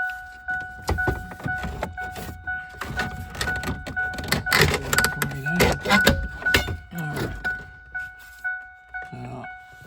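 A Ford Ranger's warning chime dinging steadily, about twice a second. Over it come repeated clicks and knocks of plastic and metal parts being worked loose from the steering column.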